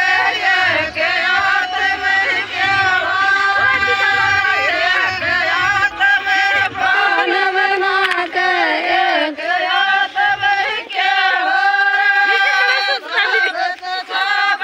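A group of women singing a Meena folk song (geet) together, in long held notes.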